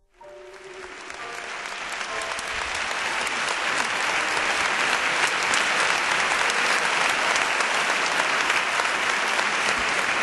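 Crowd applauding: the clapping starts suddenly, swells over the first few seconds and then holds steady. A few faint notes of music die away under it at the start.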